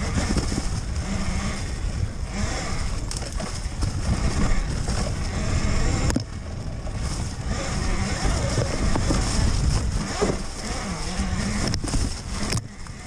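Talaria Sting MX4 electric dirt bike riding over rough forest single track: a steady low rumble of wind and trail noise with no engine note, broken by a few sharp knocks as it hits bumps, about six seconds in and near the end.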